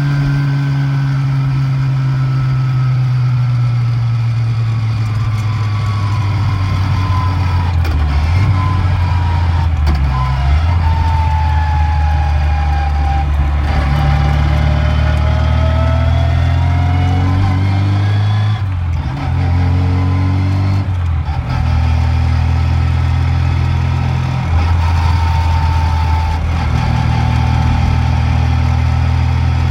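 Lada's four-cylinder engine pulling and the gear whine of its sliding-gear (non-synchro) gearbox, heard from inside the cabin. The whine slides down in pitch as the car slows, then rises again as it accelerates. It breaks briefly twice about two-thirds of the way through, at the gear changes.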